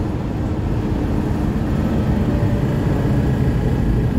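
Mercedes-Benz Citaro O530G articulated bus under way, heard from inside the saloon: its diesel engine and ZF Ecomat automatic drivetrain running steadily at cruise, a low, even rumble.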